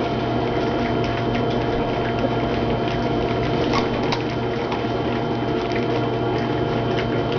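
Young F1 goldendoodle puppies playing, with light scratching and tapping of small paws and claws scattered through, over a steady hum.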